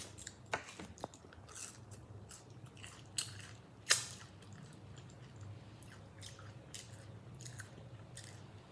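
A person chewing food close to the microphone: irregular mouth clicks and smacks, with two louder ones about three and four seconds in.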